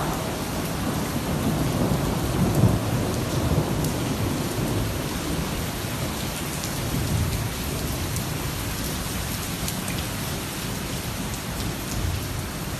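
Heavy rain pouring steadily, with a roll of thunder rumbling through the first few seconds, loudest about two and a half seconds in, then fading under the rain.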